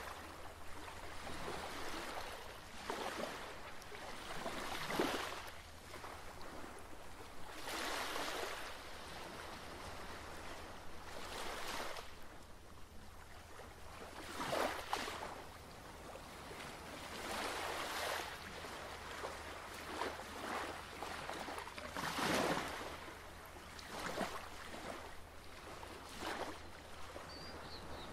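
Ocean waves washing in uneven swells, one every two or three seconds.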